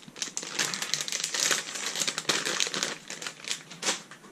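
Thin plastic packaging bag crinkling in the hands as it is opened to take out a replacement drive belt: a run of irregular crackles that dies down near the end.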